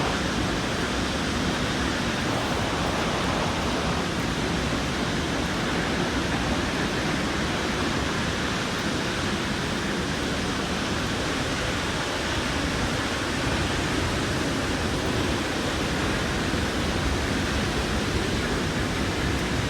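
Steady rush of Vernal Fall at close range in full spring flow, an even roar of falling water.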